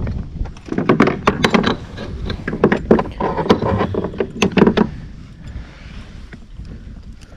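A quick run of knocks, clicks and dull thuds from a caught largemouth bass and fishing gear being handled aboard a plastic kayak, dying down to quieter rustling near the end.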